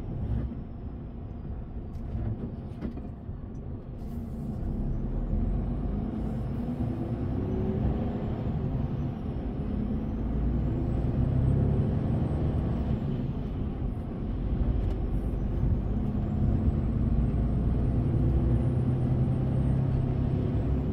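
Heavy truck's diesel engine running, heard from inside the cab as the lorry moves slowly, growing louder from about four seconds in, with a faint high whine that rises and falls.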